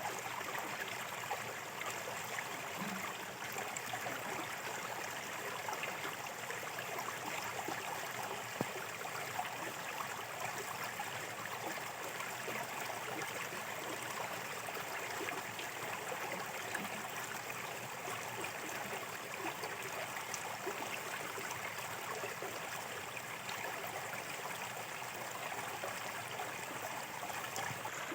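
Small shallow stream flowing steadily, a continuous even rush and trickle of water over rocks.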